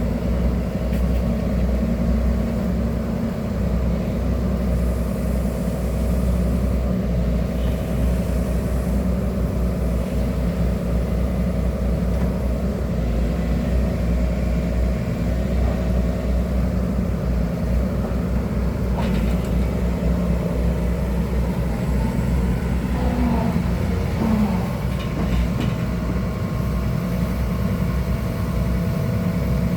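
Excavator's diesel engine running steadily, a continuous low rumble.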